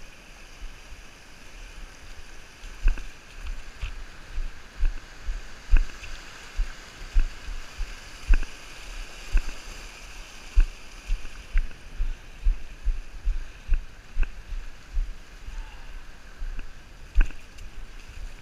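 Steady outdoor wind-and-water noise with a run of dull low thumps, about one a second.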